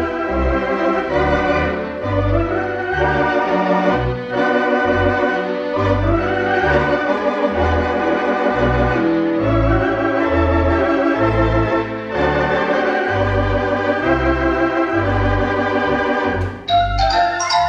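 Rodgers 360 theatre organ playing a slow popular song: sustained chords with a wavering tremulant over a steady walking pedal bass. Near the end, bright struck notes like a xylophone or glockenspiel come in.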